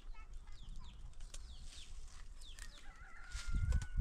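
Chickens calling: many short, high, falling peeps and clucks repeat throughout, with a thin held whistling note in the second half and a low rumble near the end.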